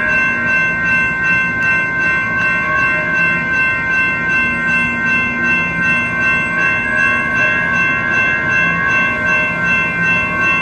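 Railroad grade-crossing bell ringing steadily, pulsing about twice a second, over the rumble of a passing train.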